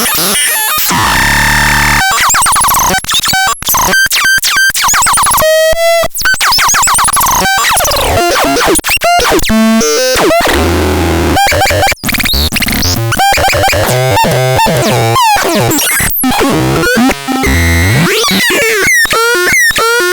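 Synthesizer played through a run of harsh, noisy electronic sounds: fast rising and falling pitch sweeps and buzzing tones that switch or cut off abruptly every second or so.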